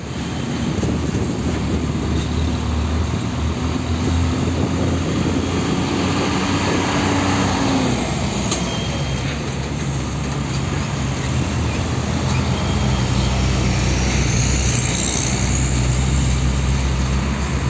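Diesel engines of a line of Hino dump trucks crawling past close by, a loud, steady low engine drone. About eight seconds in, one truck's engine note drops as it pulls past and another truck's lower note takes over.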